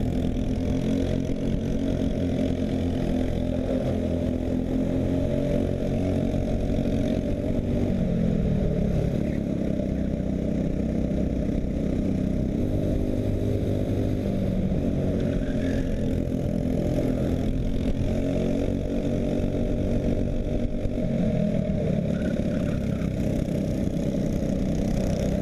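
Briggs & Stratton LO206 kart engine, a four-stroke single-cylinder, running at racing speed. Its pitch drops a few times as the kart slows for corners, notably about eight seconds in and again past twenty seconds, and climbs back each time under acceleration.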